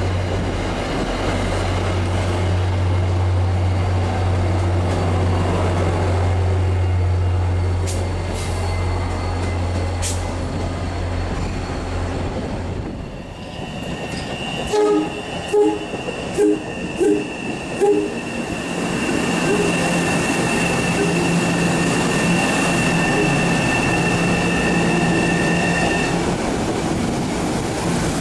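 An MBTA commuter rail train rolls past with a steady low drone for the first dozen seconds. After about 14 seconds a train horn gives a quick run of five or six short toots, and a train comes in with a steady high whine.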